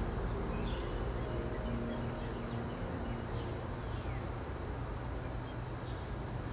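Outdoor ambience: small birds chirping in short, scattered calls over a steady low background rumble.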